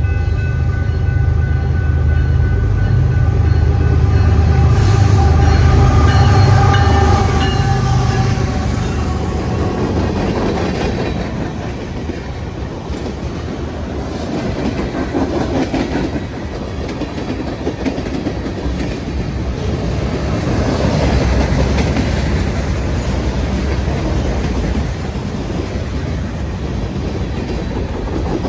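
A diesel-hauled train passing close by at speed. The locomotive's engine drone builds and goes by in the first eight seconds or so, then the rolling cars and wheels make a steady rushing rumble.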